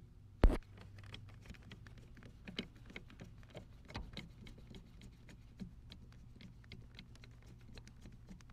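A jack being hand-cranked back up into its under-seat storage bracket in a Chevy Silverado: one sharp metallic knock about half a second in, then a run of rapid, irregular light clicks as the jack's screw and its metal parts are turned against the bracket.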